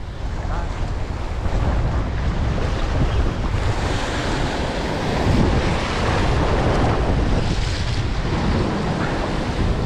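Ocean surf washing in steadily, with wind buffeting the microphone in a low, fluttering rumble.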